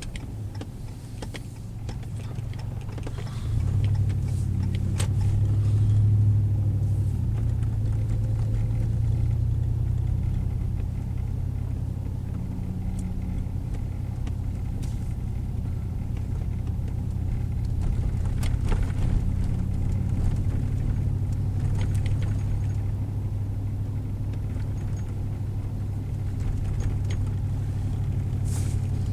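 Car engine and road noise heard from inside the cabin: a steady low drone that grows louder about three and a half seconds in, with a few light knocks.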